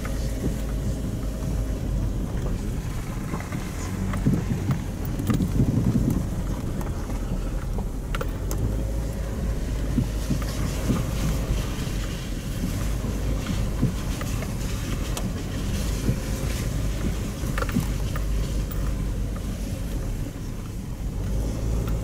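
Car cabin noise while driving on an unpaved forest road: a steady low rumble of engine and tyres, with scattered clicks and knocks from the car jolting over the bumps.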